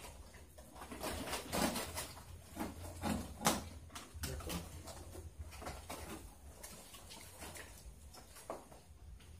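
Plastic weaving strips of a bayong bag crinkling and clicking as they are handled and worked by hand, in irregular bursts over a low steady hum.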